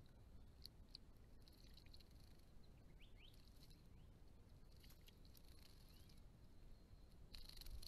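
Near silence: faint steady hiss with scattered soft ticks and two short, faint rising chirps about three seconds in, and a brief swell of hiss near the end.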